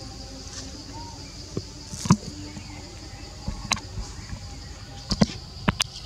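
Insects buzzing steadily in a high band, with several sharp clicks or knocks, the loudest about two seconds in and a cluster about five seconds in.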